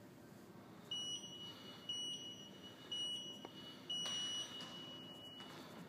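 LED gym workout timer beeping its start countdown: three short high beeps a second apart, then a longer beep as the clock starts counting up.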